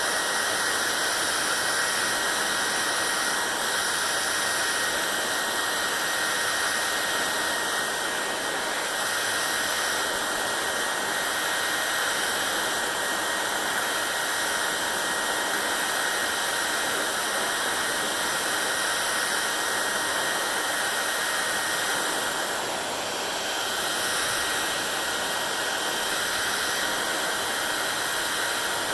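Hair dryer running steadily: a constant rush of blown air with a thin high whine held on one note. It dips slightly for a moment about 23 seconds in.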